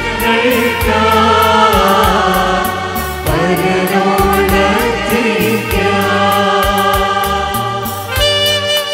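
Mixed choir singing a hymn into microphones, with electronic keyboard accompaniment keeping a steady beat. Near the end the voices stop and the keyboard carries on alone with held notes.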